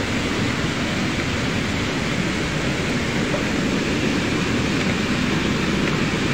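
Rain-swollen floodwater rushing and churning over a low concrete wall, a steady, unbroken rush of water.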